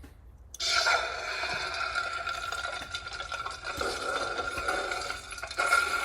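Lightsaber sound font playing through the speaker of a Proffie-board saber core fitted in a Bendu Armory sleeve: after a brief quiet it starts suddenly about half a second in, then hums on a steady held tone that swells and wavers as the saber is moved.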